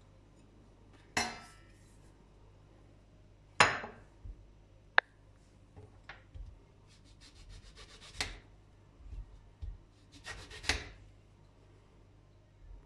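Kitchen handling sounds from utensils and dishes: a few scrapes and knocks, a sharp click about five seconds in, and two quick runs of small ticks later on.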